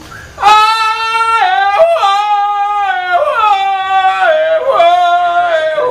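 A man's Panamanian grito: a loud, high falsetto cry that starts about half a second in. It holds long notes, breaks abruptly in pitch several times like a yodel, and steps gradually lower.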